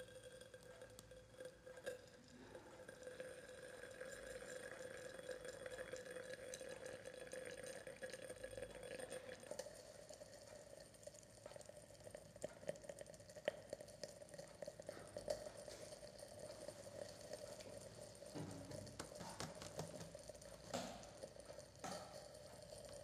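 Copper(II) nitrate solution boiling down in a glass test tube over an alcohol lamp flame. Faint sizzling turns to scattered crackles about halfway through, as the last of the water evaporates and the salt dries. A faint steady hum runs underneath.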